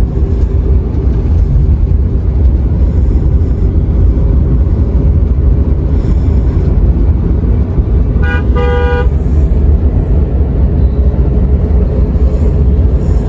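Busy city street traffic with a steady low rumble. A vehicle horn honks twice in quick succession about eight seconds in, and fainter high-pitched toots sound now and then.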